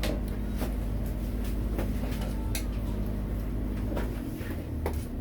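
A steady low machine hum with scattered clicks and knocks of handling and clatter on top; the deepest part of the hum drops away about four seconds in.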